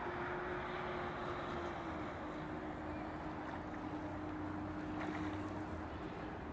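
Steady rushing wind-like noise with a low steady hum that drops slightly in pitch about two seconds in.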